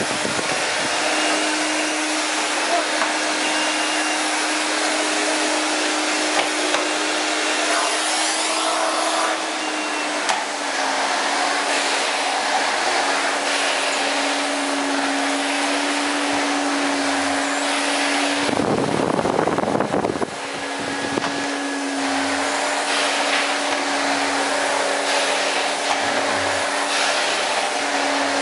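Miele Silverstar S280i canister vacuum cleaner running on its 1200 W motor, a steady motor hum over rushing air as the floor nozzle works a flat-woven rug. The hum drops slightly in pitch about ten seconds in, and a loud low rushing lasts about two seconds around two-thirds of the way through.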